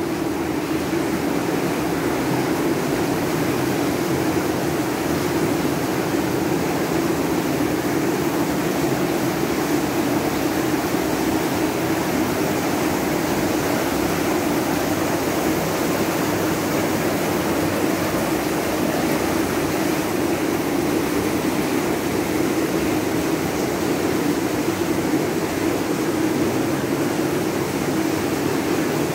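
Steady hum and rush of spa room ventilation, unchanging throughout.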